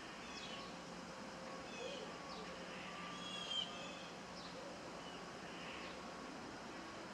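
Several birds chirping and whistling in short calls over a steady rush of wind, with one louder call about three and a half seconds in.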